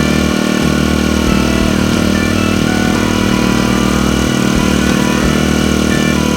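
Honda WX10T water pump's small 25cc GX25 four-stroke engine running at a steady speed.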